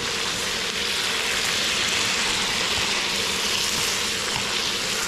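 Food sizzling steadily as it fries in hot oil, an even hiss with no breaks.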